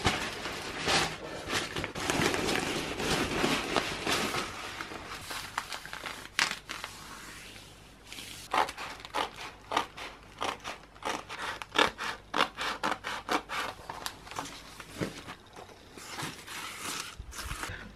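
Sheets of patterned wrapping paper and tissue paper rustling and rubbing as they are handled, smoothed flat and slid across a desk. About halfway through, the steady rustle gives way to a run of short crinkles and taps.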